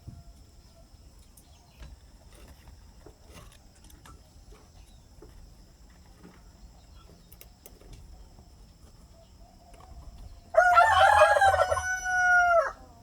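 A rooster crowing once near the end, one loud call of about two seconds that trails off at the end, over faint steady high tones.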